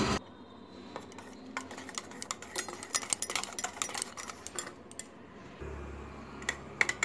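Wire whisk clicking and scraping against a stainless steel pot as gram flour is beaten into water to make a batter. The rapid, irregular clicks start about a second in and thin out near the end.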